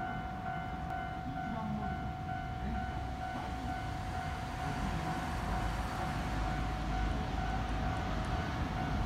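JR West 225 series electric train approaching, its running rumble growing steadily louder through the second half. Over it a level crossing warning bell rings steadily.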